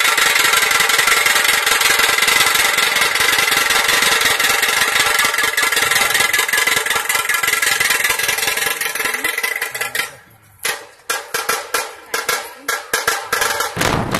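A troupe of dhol drums played together in a fast, dense roll. About ten seconds in it breaks off briefly, then starts again as separate hard beats.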